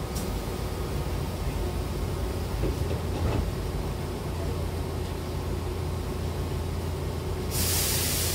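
Hankyu train's sliding passenger doors closing, meeting with a light thump about three seconds in, over the steady hum of the standing train. Near the end a sudden loud, steady hiss of air starts.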